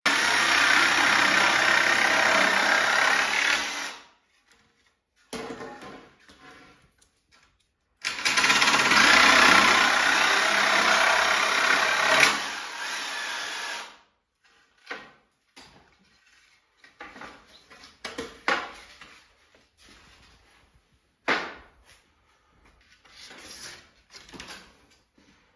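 Corded electric jigsaw cutting pine boards in two long runs of about four seconds each, the second easing off to a lower level before it stops. After that come scattered light knocks and clatter as the boards are handled.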